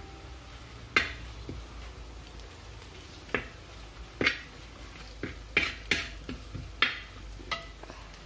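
A spoon knocking and scraping against a cooking pan while spice masala is stirred and sautéed: several sharp clinks at irregular intervals.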